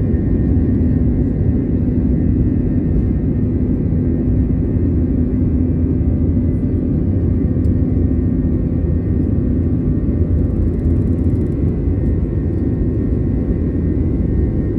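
IAE V2500 jet engines of an Airbus A321 heard from inside the cabin: a loud, steady rumble with a steady hum that fades about nine seconds in.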